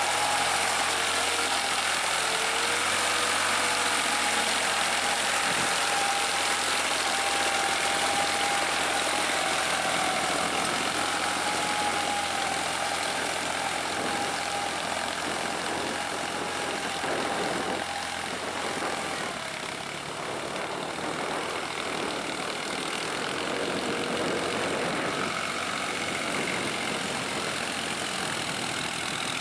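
New Holland TT55 tractor's diesel engine running steadily under load while its rear rotary tiller churns through wet paddy mud. A thin steady whine runs over the engine noise and fades out about two-thirds of the way through.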